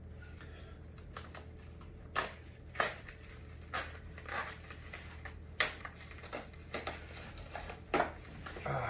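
Plastic packaging crinkling and rustling in irregular bursts as wrapped parts are pulled out from inside a packed 3D printer frame, over a steady low hum.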